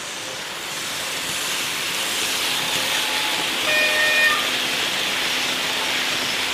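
Märklin H0 model train running past on a curve: a swelling rush of wheels on the metal track. It is loudest about four seconds in, with a brief high squeal as it passes closest.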